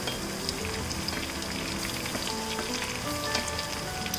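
Ghee and oil sizzling with a steady hiss and small crackles in a stainless steel pan as whole spices and ginger-garlic paste sauté over medium heat.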